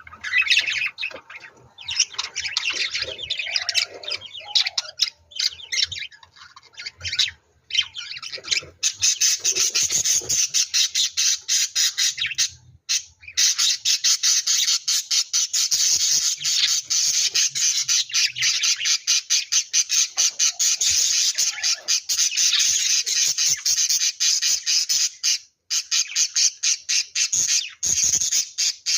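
Bird squawking in a rapid, harsh chatter of closely packed calls, broken by a few short pauses.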